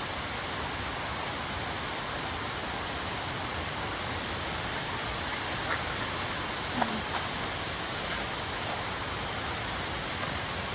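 Steady rush of falling water from a nearby waterfall stream, an even hiss with no rhythm.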